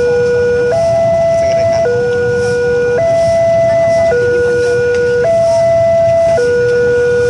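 Railway level-crossing warning alarm sounding with the barrier down: an electronic two-tone signal that switches between a lower and a higher note about once a second, over steady traffic noise.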